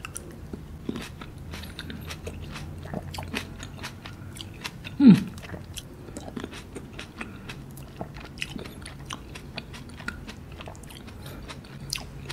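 Close-miked chewing of Kyoho grapes: a run of small mouth clicks and squelches as the grapes are bitten and chewed. About five seconds in, a brief hummed 'mm' falls in pitch.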